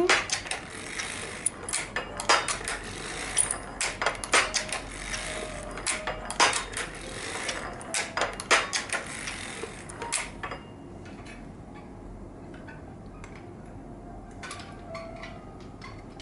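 Harrison semi-automatic circular sock knitting machine being hand-cranked back and forth for a heel, its needles and cams clicking and clattering. The clatter stops about ten seconds in, leaving only a few faint clicks.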